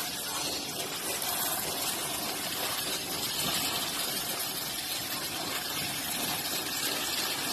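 Water running steadily: a continuous, even rushing hiss with no breaks.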